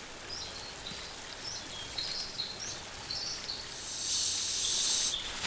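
A bird gives short, high chirping calls, repeated about every half second, over a steady wash of background noise. About four seconds in, a sharp hiss lasts about a second and is the loudest sound.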